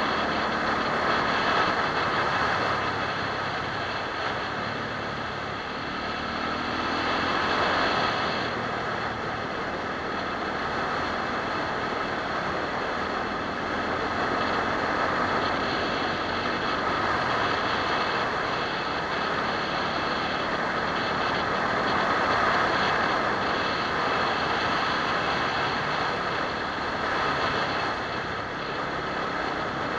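SWM RS650R's single-cylinder engine running under way on a gravel road, with steady wind and tyre noise. The revs climb about six seconds in.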